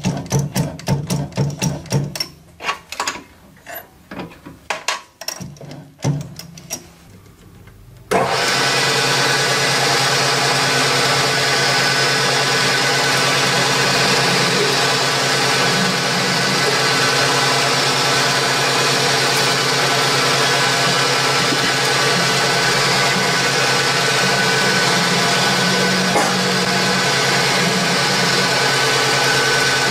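A metal lathe running steadily under cut, its spindle turning a small steel workpiece against the tool. It starts abruptly about eight seconds in, after a few seconds of plucked, guitar-like background music that dies away.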